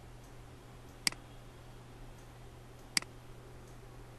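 Two computer mouse clicks about two seconds apart, over a faint steady low hum.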